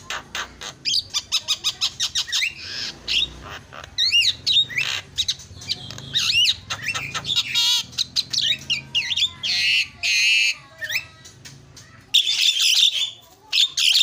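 Javan myna (jalak kebo) singing: a rapid, busy run of harsh squawks, sharp clicks and whistled notes that swoop up and down, with fast trills in the middle and a loud burst of calls near the end.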